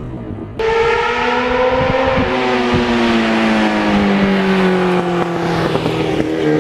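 Sport motorcycle engine running, its pitch falling slowly and steadily as the bike rolls along the road. There is a short quieter dip just at the start.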